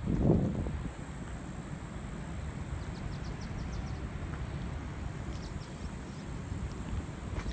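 Wind on a phone microphone: a steady low rumble with a stronger gust in the first half second, over a constant high hiss. A few faint quick chirps come about three seconds in and again past five seconds.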